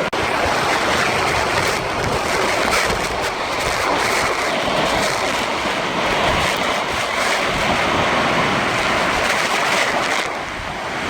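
Large waterfall: a steady rush of falling water, dipping slightly near the end.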